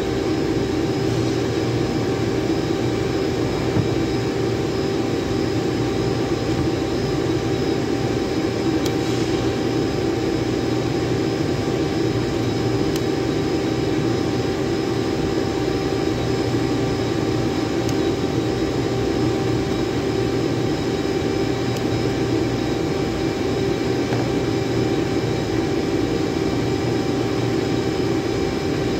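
Steady drone of running machinery, a constant hum with a few fixed tones, with a few faint clicks over it.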